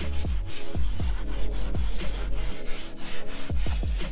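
A leather-cleaning brush scrubbing a leather car seat, working interior cleaner into a foam, with many short scratchy strokes. Electronic music plays underneath, with deep bass drum hits that drop in pitch.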